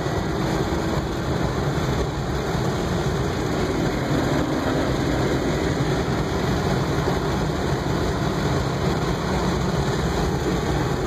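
Honda Accord V6 coupe at speed on the road, heard from inside the cabin: a steady, loud mix of engine, tyre and wind noise with no clear change in pitch.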